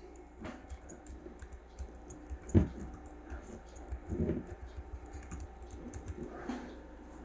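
Keys clicking on the small keyboard of an Asus Eee PC 701 4G netbook as a command is typed, slow and irregular with pauses between keystrokes, one louder click about two and a half seconds in.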